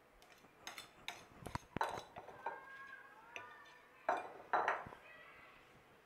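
Steel ladle clinking and scraping against a glass bowl and glass jar while oily pickle masala is scooped out. There is a quick run of clinks in the first two seconds, a faint scraping squeak, then two loud knocks a little after four seconds.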